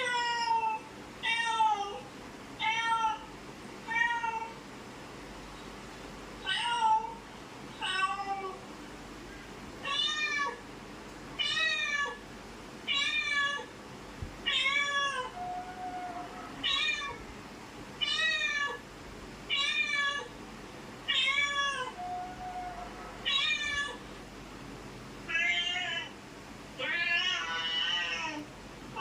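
Cats fighting: a cat meows again and again, a short rising-and-falling call about every second, then longer, wavering yowls near the end.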